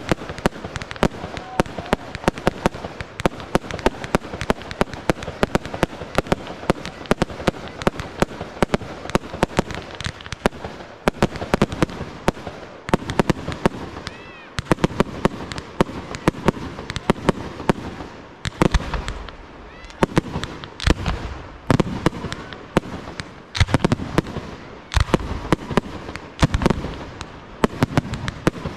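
Fireworks display: a fast, continuous string of sharp reports and crackles from aerial shells, several a second, with a few louder, deeper booms in the last third.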